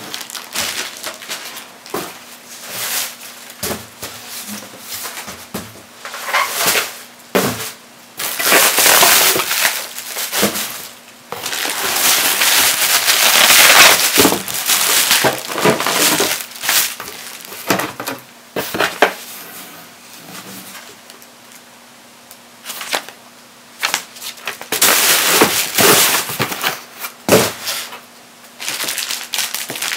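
Packing material and plastic-bagged parts being handled in and around a cardboard box: irregular crinkling and rustling of plastic and paper, with cardboard scrapes and knocks. There is a long loud stretch of rustling around the middle, and a sharp knock near the end.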